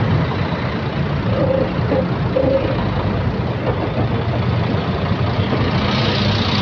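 Mercedes-Benz O500RSD 2445 double-decker bus's diesel engine idling steadily.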